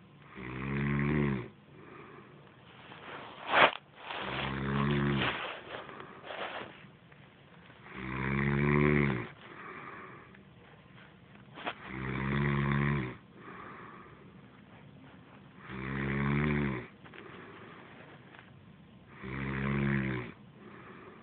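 A woman snoring in her sleep: six loud, rasping snores, one on each in-breath, about every four seconds. A single sharp click comes about three and a half seconds in.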